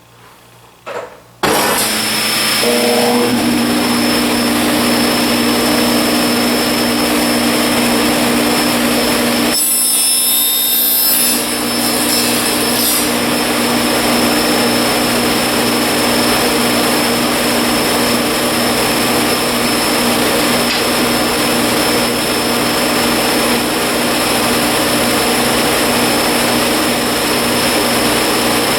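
Electric saw switched on about a second and a half in and running steadily through a trial cut in wood.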